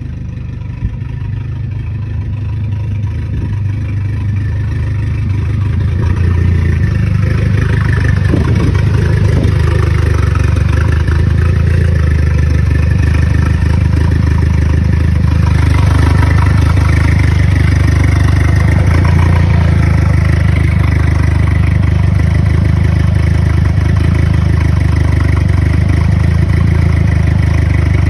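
Turbocharged Nissan Micra K11 engine running and revving, with turbo flutter. It grows louder over the first several seconds and then stays loud and steady.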